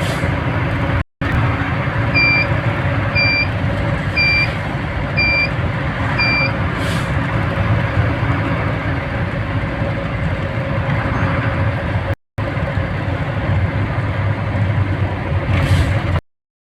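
Steady engine and road noise of a vehicle travelling along a road, with five short high beeps about one a second near the start. The sound drops out briefly twice and stops just before the end.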